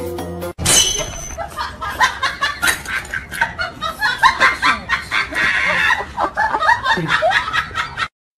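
A music track cuts off about half a second in and gives way to rapid, choppy giggling laughter, which stops abruptly near the end.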